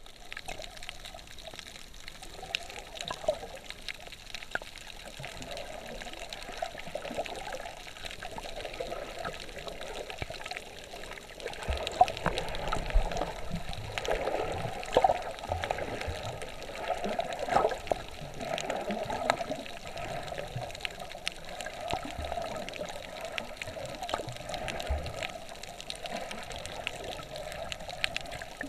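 Water moving around a camera held underwater: a steady swishing wash that swells and eases, with scattered sharp clicks and crackles.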